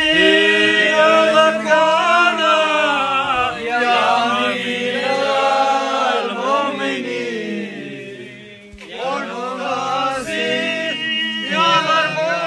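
Slow vocal chant sung with long held, wavering notes. The singing fades briefly about eight seconds in, then comes back.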